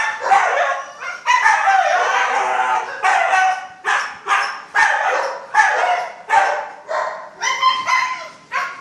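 Siberian huskies whining and yelping in excitement, eager to be taken out for a walk: one long drawn-out call about a second in, then a rapid string of short calls that fall in pitch.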